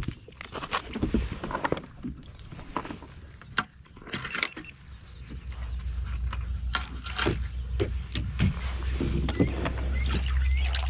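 Scattered knocks and clicks of fishing gear and a landed fish being handled aboard a plastic sit-on-top kayak. A low rumble builds from about halfway.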